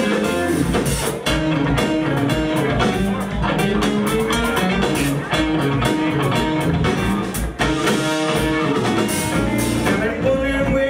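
Live rock band playing: keyboard piano, electric bass, guitar and drum kit together at a steady beat.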